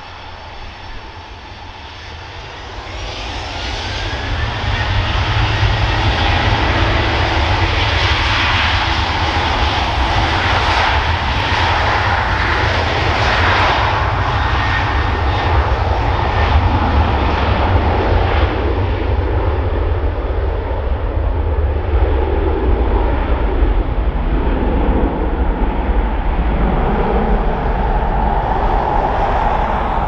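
Airliner engines growing louder over the first few seconds with a rising whine, then staying loud and steady as the aircraft runs close by. Strong wind buffeting the microphone adds a heavy low rumble.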